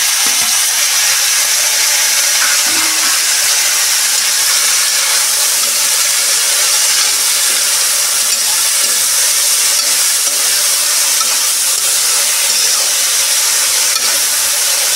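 Sliced bitter gourd frying in hot oil in an iron kadhai while it is stirred with a metal spoon: a loud, steady sizzle from the freshly added wet slices.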